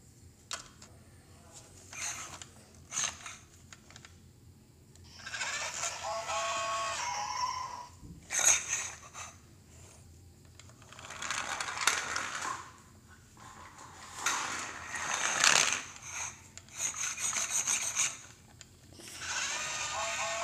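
Plastic LEGO Duplo toy train being handled and pushed along: sharp plastic clicks and knocks, then several stretches of louder rattling and scraping of a second or two each.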